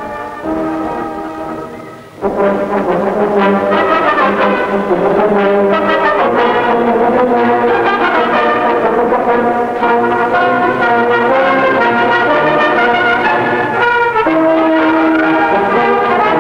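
Brass-led orchestral background music, coming in fuller and louder about two seconds in.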